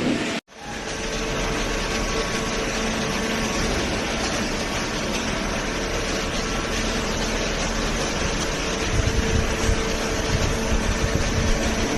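Hydraulic baler's electric motor and pump running steadily with a hum. An uneven low rumble joins about nine seconds in.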